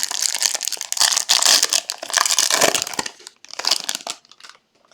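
Crinkly wrapper of a trading-card pack being torn open and crumpled by hand: a dense crackling for about three seconds, then a shorter burst of crinkling a little later.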